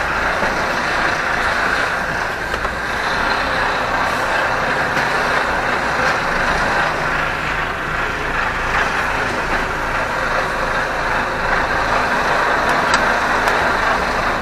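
Lorry's diesel engine running, heard from inside the cab, as the truck creeps forward at low speed on packed snow.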